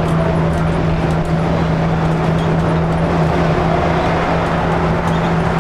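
Inside a 1982 GM New Look 'Fishbowl' transit bus cruising at highway speed: its Detroit Diesel 6V71 two-stroke engine drones steadily under road and wind noise, with a strong constant hum.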